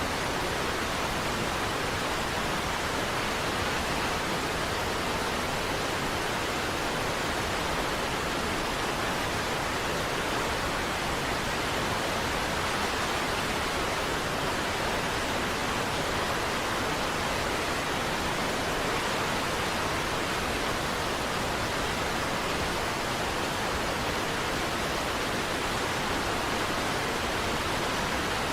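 Steady, unbroken rushing of a large waterfall: an even wash of falling water with no separate splashes, drops or changes.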